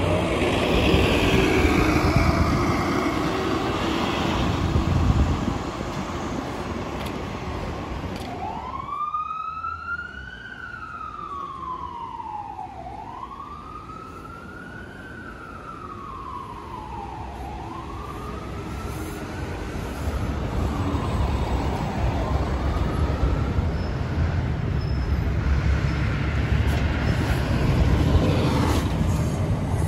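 Road traffic noise with a heavy vehicle's engine running by, then, after a sudden break, an emergency vehicle's wail siren rising and falling slowly three times and fading away, with traffic noise building up again afterwards.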